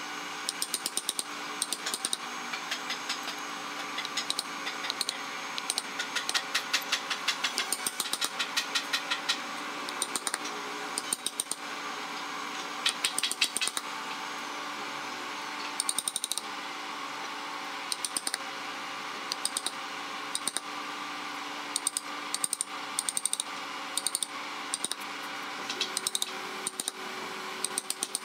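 Wooden mallet rapping on a wood chisel driven into a large timber block, in quick runs of several sharp knocks a second with short pauses between, as wood chips are cut from a notch. A steady hum runs underneath.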